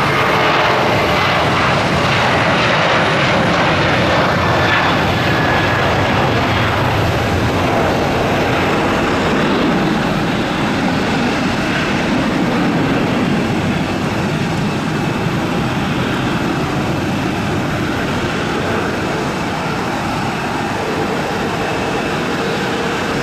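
Boeing 737-800's two CFM56-7B turbofan engines at takeoff thrust: a loud jet roar as the airliner rolls down the runway and lifts off. A high whine that sits over the roar fades out after several seconds, and the roar eases off gradually as the aircraft climbs away.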